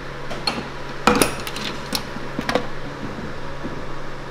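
Metal clanks and knocks of waffle-making gear, the flip waffle irons and batter ladle: a cluster of sharp knocks about a second in and a couple more near the middle, over a steady low hum.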